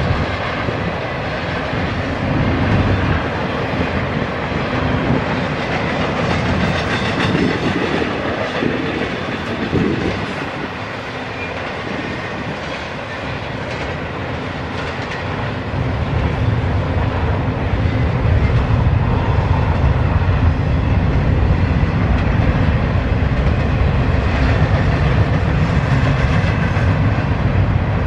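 Double-stack intermodal freight train rolling past, its steel wheels running on the rails under loaded container well cars. The low rumble grows louder a little over halfway through.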